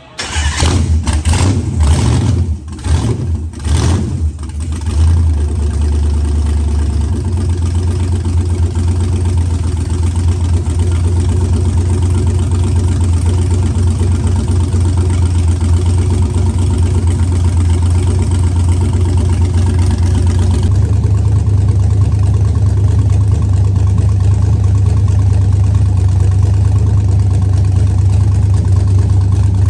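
Truck's stock 5.3-litre V8 with a rebuilt top end starting up, revved a few times over the first few seconds, then settling into a steady idle. About two-thirds of the way through the sound turns deeper and duller.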